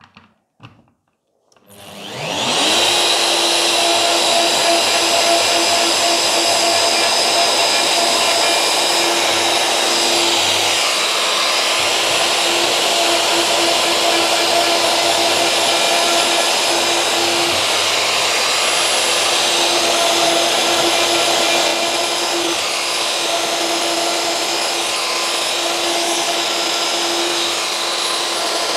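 A plunge router starts up about a second and a half in, its pitch winding up to full speed within a second, then runs steadily with a high whine while making the first plunge cut of a bench dog hole through a hole template in a workbench top.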